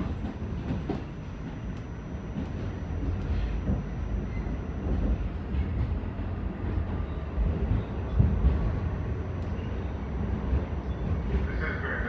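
Interior of an R46 subway car running along the track: a steady low rumble with scattered clicks of the wheels over the rails, and a brief higher-pitched noise near the end.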